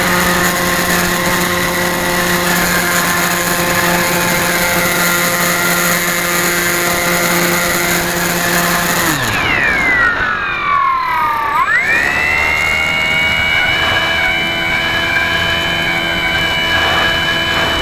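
Radio-controlled model airplane's motor and propeller, heard from on board, running at a steady whine over a constant hiss. About nine seconds in the throttle is cut and the pitch falls away for about two seconds, then it climbs back up as power is restored and holds steady again.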